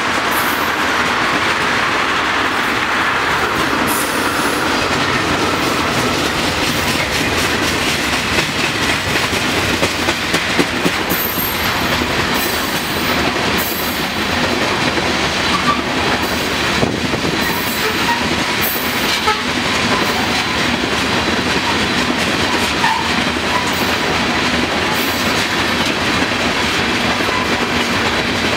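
Freight cars of a manifest train, tank cars and then covered hoppers, rolling past at speed: a steady rumble and clatter of steel wheels on rail. Brief high screeches from the wheels come and go now and then.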